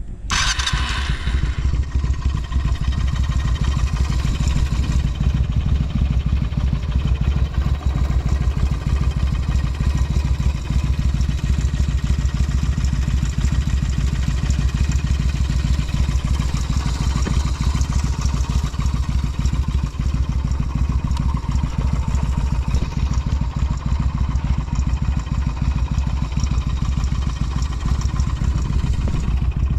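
Yamaha Renaissa motorcycle engine breathing through a Supertrapp exhaust, firing up just after the start and then idling steadily at an even pitch and level.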